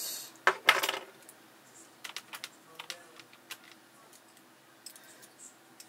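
Clicks and taps of hand-held digital calipers against a metal lens adapter while a depth is measured: a quick cluster of sharper clacks about half a second in, then scattered light ticks.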